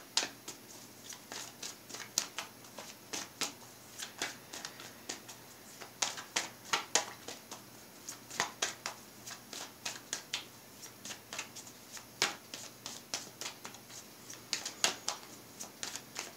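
A deck of tarot cards shuffled by hand: short, sharp card snaps, several a second, in uneven bunches.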